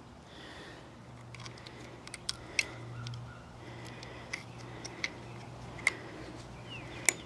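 Small, sharp plastic clicks and taps, irregularly spaced, as an SD card is worked into the card slot of a Rebluum wireless solar security camera.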